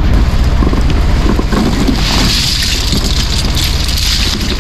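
Small fishing boat's engine running steadily, with a hiss of water that swells about two seconds in.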